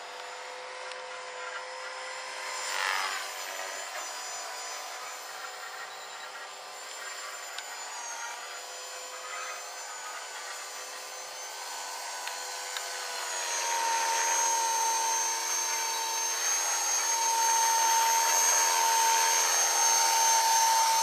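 Electric 450-size radio-controlled helicopter (450 PRO) in flight: the motor and rotor give a steady whine, with a quick falling sweep about three seconds in. The whine grows louder from about halfway as the helicopter comes down to hover low.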